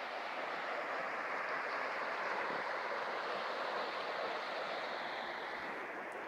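Steady rushing of river rapids, a little fainter near the end.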